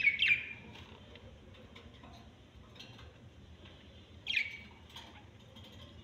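A small yellow parrot gives two short, sharp chirps about four seconds apart, the first right at the start, with faint ticks between them.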